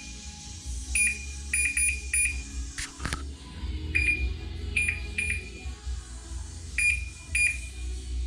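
Maytag oven range control board beeping: about ten short, high-pitched beeps at irregular intervals, with a sharp click about three seconds in and a steady low hum underneath.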